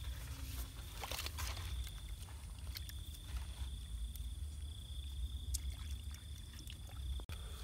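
Hands sloshing and patting shallow muddy water and mud in a small stream channel, with scattered small splashes, the strongest about a second in, over a steady low rumble and a thin, steady high-pitched tone.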